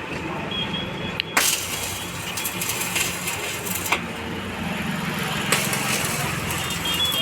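Stick welding arc crackling steadily, with a low buzz underneath and a few sharp pops.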